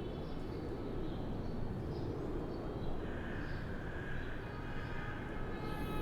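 Outdoor city ambience: a steady rumble of distant traffic, with a faint higher whine joining about halfway through.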